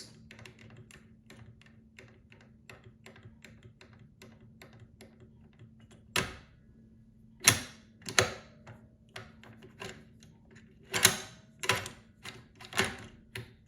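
Metal clicking of a pick-decoder tool working the plates of a Chinese 3x3-plate safe lock: a run of faint ticks, a few a second, then from about six seconds in, louder sharp clicks at irregular intervals.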